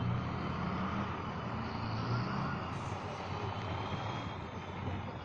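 Diesel engine of a six-wheeled Tatra trial truck running steadily as it pulls slowly through mud, its note rising a little about two seconds in and easing off after.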